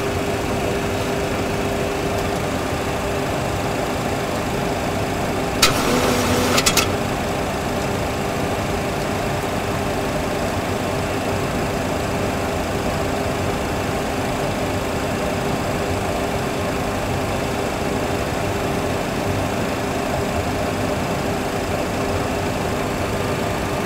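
Steady simulated engine and airflow noise in a Boeing 737 full flight simulator cockpit on final approach, with a constant hum. About six seconds in there is a brief rattling burst lasting about a second.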